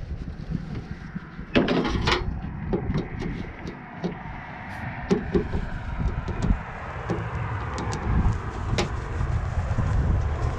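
Small clicks, taps and rustles of hands working wires and connectors, with a louder rustle about two seconds in. Underneath runs a low rumble of wind on the microphone.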